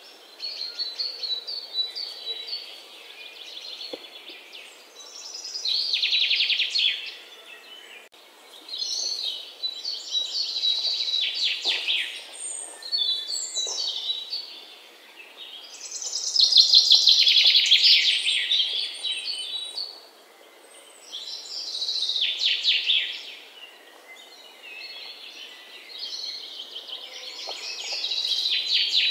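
Birds singing: high chirps and rapid trills in bursts of a second or two, with short lulls between them.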